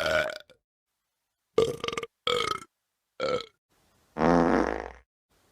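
A person burping: the end of one burp at the start, then four separate burps with silence between them, the last and longest about four seconds in.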